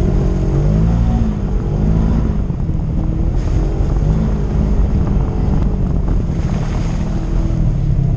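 Polaris RZR side-by-side's engine running under load while driving through mud, its pitch rising and falling several times as the throttle is worked.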